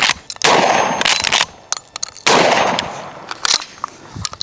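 Pump-action 12-gauge shotgun fired twice, shots just under two seconds apart, each followed by a long echoing tail, with short sharp clicks between and after the shots.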